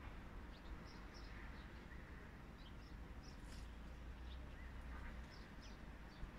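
Small birds chirping faintly and on and off, short high chirps several times a second at times, over a low steady rumble.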